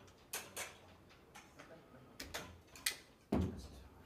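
Camera and tripod handling noise: scattered light clicks and knocks, with one heavier thump about three seconds in.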